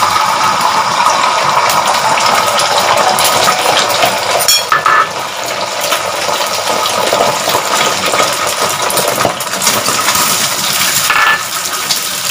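Beaten eggs frying in hot oil in a wok, a steady sizzle. Near the end a spatula scrapes and pushes the egg across the pan.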